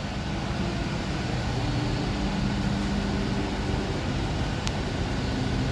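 Steady low mechanical hum with even background noise, and a single faint click late on.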